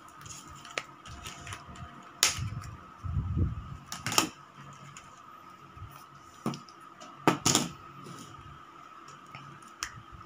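Plastic smartphone parts handled on a table: a few sharp clicks and knocks, the loudest about 2, 4 and 7 seconds in, with softer handling rustle between them.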